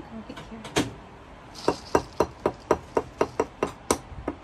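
Shell of a balut (fertilised duck egg) tapped against the rim of a ceramic bowl to crack its top: one click, then a quick run of about a dozen sharp clinking taps, about four a second.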